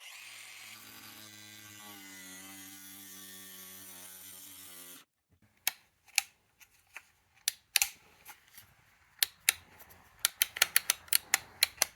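Hart brushless cordless angle grinder running at steady speed, then cutting out suddenly about five seconds in; the owner puts the cutouts down to the small 2 Ah battery being drained. Then a run of sharp mechanical clicks, coming faster near the end.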